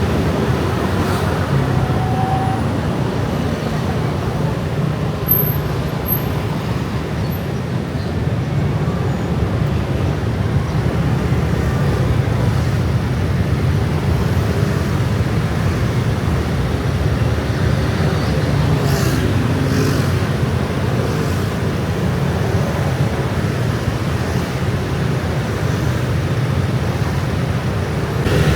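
Dense stream of scooters and motorbikes going past: a steady drone of many small engines and tyres.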